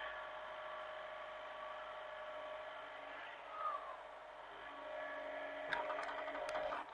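Hitachi mini excavator running with a steady engine drone, a short rising whine about three and a half seconds in, and a few sharp clanks near the end.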